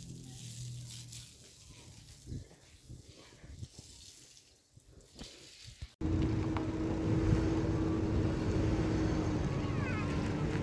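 Faint scattered knocks and rustles, then about six seconds in a pickup truck's engine suddenly becomes loud, running steadily with a low rumble and a held hum.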